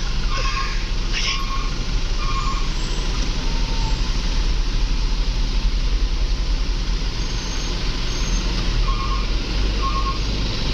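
Steady running and road noise of a vehicle on the move, with short, evenly repeated high beeps in the first two seconds and again about nine seconds in.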